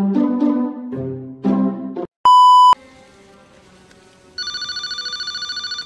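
A few notes of a light melody, then a loud, steady electronic beep about two seconds in that lasts half a second. Near the end a telephone starts ringing with a rapid electronic trill.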